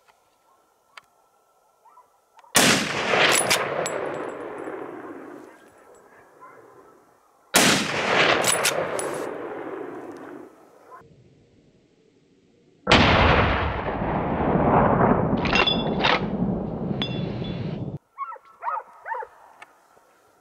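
Three loud rifle shots about five seconds apart, each rolling away in a long echo off the hills.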